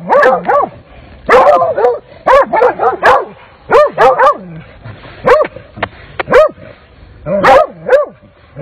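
Coyote hounds barking and yelping in rapid, repeated bursts as they maul a coyote on the ground.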